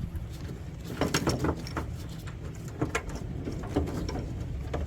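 Irregular clicks, taps and short scrapes of hand-worked metal and plastic parts inside a car door as the window track is worked loose, over a low steady hum.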